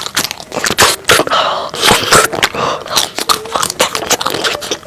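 Close-miked wet, sticky chewing and mouth smacking from eating a soft, chewy glutinous rice cake filled with chocolate sauce: many quick irregular clicks and squelches, with a faint hummed "mm" under them.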